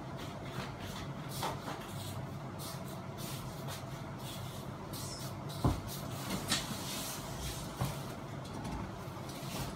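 Fanimation Benito ceiling fan running with a steady low hum, while hands handling the fan's switch housing make scattered clicks and knocks, the loudest a little over halfway through.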